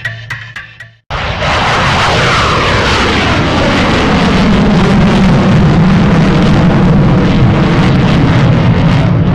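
Aeroplane engine sound, most likely an added sound effect: it starts abruptly about a second in and runs loud and steady, with a low drone and a tone that glides downward in pitch over several seconds.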